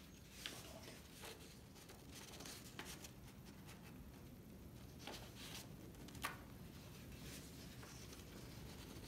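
Faint rustling and shifting of paper sheets on a table, with a scatter of short crinkles and soft taps, the sharpest about half a second in and about six seconds in.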